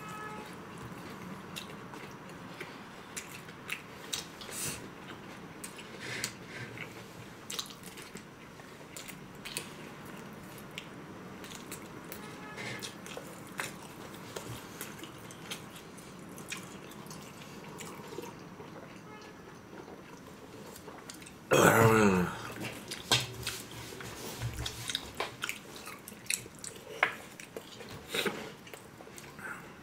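Eating sounds: chewing, with chopsticks and a fork clicking against plates and bowls. About three-quarters of the way through comes one short, loud voice sound that falls in pitch.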